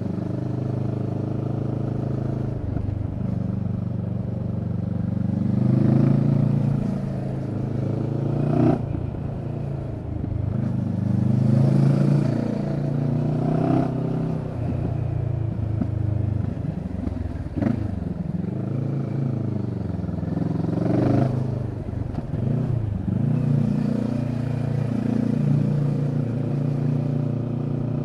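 Kawasaki Z650's parallel-twin engine through a Leo Vince EVO carbon exhaust, ridden through bends. The revs rise and fall over and over as the rider accelerates out of curves and rolls off, shifting down a gear along the way.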